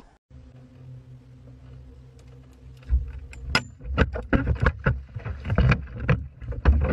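A steady low hum from a boat, then from about three seconds in a run of loud thumps and knocks on the boat's deck as people move about on it.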